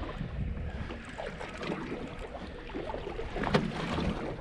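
Water lapping and splashing against the hull of a small drifting fishing boat, with wind and a sharper knock about three and a half seconds in.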